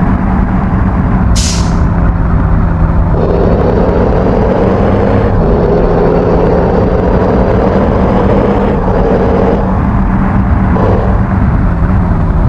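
Bus engine running loudly, with a short burst of air hiss about a second and a half in.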